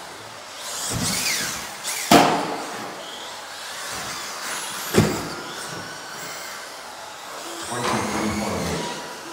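Electric RC off-road car running on an indoor carpet track, its motor whine rising and falling with the throttle over the hiss of tyres on the surface. Two sharp impacts, about two seconds in and about five seconds in, are the loudest sounds.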